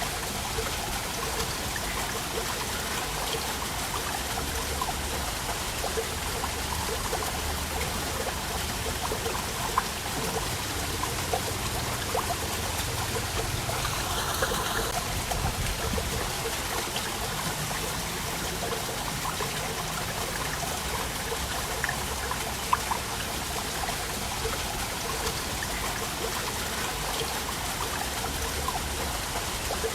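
Waterfall running steadily: a continuous rush of falling water with many small splashes and trickles in it.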